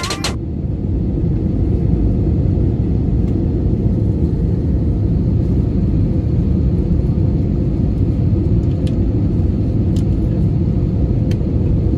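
Airbus A320 cabin noise during descent for landing: a steady low rumble of engines and airflow, with a faint steady hum.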